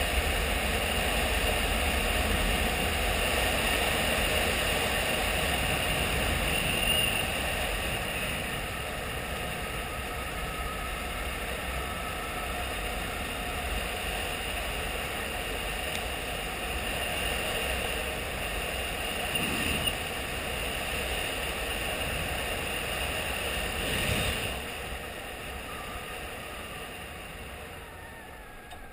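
Honda XRE 300 single-cylinder motorcycle engine running at road speed on a dirt road, with steady wind noise on the handlebar-mounted camera's microphone. The sound eases and grows quieter over the last few seconds as the bike slows.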